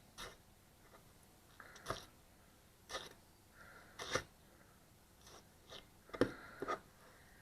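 A 240 mm forged Damascus gyuto chef's knife slicing through firm, crisp food on a cutting board, most likely vegetables such as potato, in a series of separate cuts roughly one a second.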